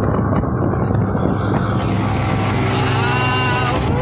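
Boat engine running at a steady low drone while under way, under a continuous rushing noise.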